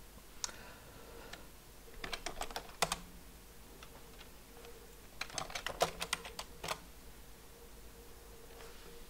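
Typing on a computer keyboard: two short bursts of keystrokes, about two seconds in and again about five seconds in, as short terminal commands are entered.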